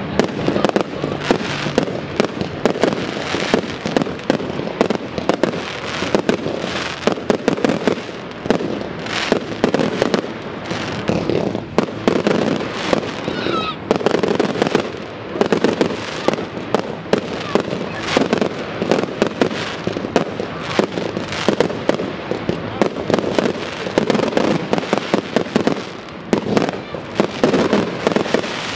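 Aerial fireworks bursting in rapid succession: a dense, continuous barrage of bangs and crackling with no pause.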